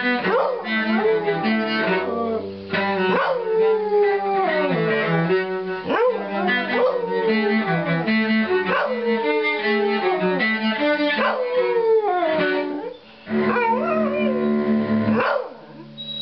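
A dog howling along to cello music: a string of howls that each start high and slide down in pitch, about one every three seconds, over held cello notes. Near the end the cello and the howling stop.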